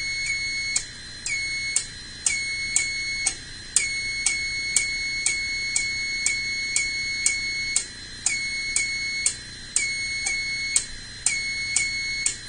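Fire alarm sounding continuously: a high-pitched electronic tone in short, rapid beeps that repeat with brief, uneven pauses.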